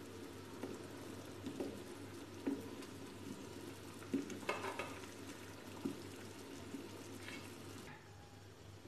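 Boiled besan gatte (gram-flour dumplings) dropped one by one into simmering gravy: a series of soft plops and splashes, the loudest a little past the middle, over the low bubbling of the gravy.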